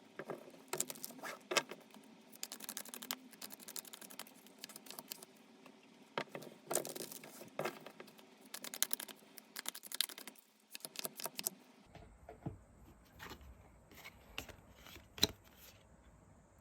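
Tarot cards being handled and shuffled: a run of quick rustling clicks and riffles in bursts, then fewer, separate taps from about twelve seconds in, when a faint low hum and a steady high whine also start.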